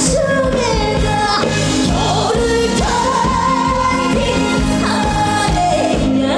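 A woman singing a trot song over a band accompaniment with a steady beat, holding one long note in the middle.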